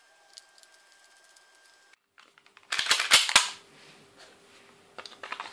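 A quick run of loud, sharp clacks about three seconds in, then a few lighter clicks near the end: the reassembled airsoft gas-blowback pistol, a WE Glock 33 Advance, being handled and laid on the table.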